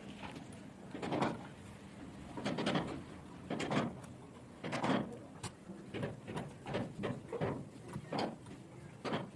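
Door-lock hardware being fitted by hand: about a dozen short scrapes and clicks of the metal rod and lock parts against the door as they are pushed through and worked.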